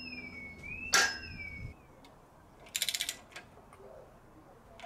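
A hammer blow on the engine block, with a metallic ring, about a second in. Then, near the middle, a short run of rapid clicks from the ratchet handle turning a stud extractor, working a seized head stud out of the alloy block.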